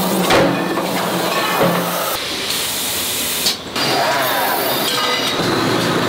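Aluminium frying-pan factory machinery in quick succession: a steady mechanical hiss and hum from a press and from pan-finishing machines, changing abruptly twice, about two and three and a half seconds in.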